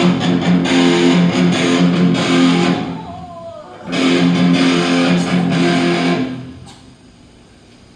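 Electric guitar through an amplifier, played during a band's sound check: two short passages of strummed, held chords, each about two to three seconds long. The second dies away a little after six seconds.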